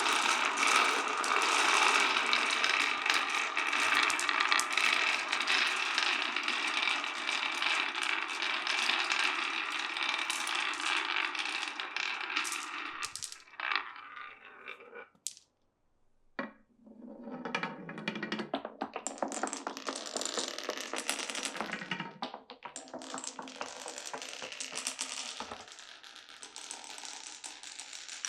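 Glass marbles rolling and clattering down a wooden marble run, many clicking together at once. The clatter thins out past the middle, drops to a brief near-silence, then picks up again with sparser rolling and clicks.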